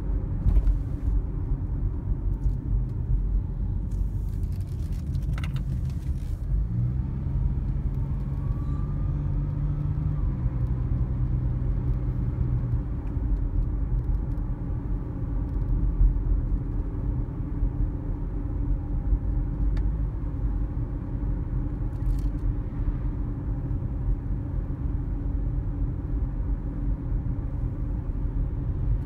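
Cabin noise of a car driving along a road: a steady low rumble of tyres and engine.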